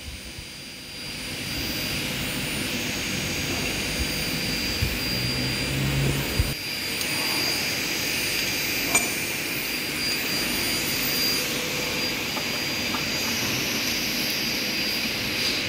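Steady running noise of workshop machinery, a rushing sound with a high whine over it, coming up about a second in. A few low knocks come near the middle, then a single sharp metallic clink.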